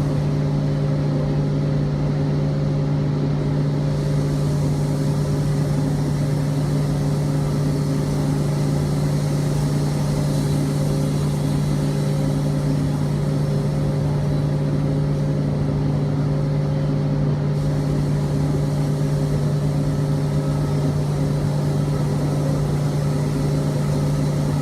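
Sawmill machinery running steadily: an unbroken engine hum that holds one pitch throughout.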